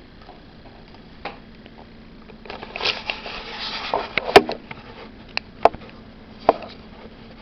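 Handling noises: a stretch of rustling, then several sharp clicks and knocks, the loudest about four seconds in, over a faint steady hum.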